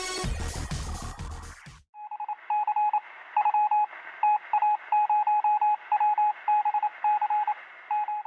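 Electronic music cuts off just under two seconds in; then a single-pitch electronic beep is keyed on and off in short and long tones, Morse-code style, over a steady hiss.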